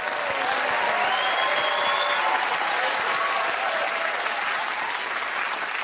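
Studio audience applauding steadily, with a few faint cheering voices.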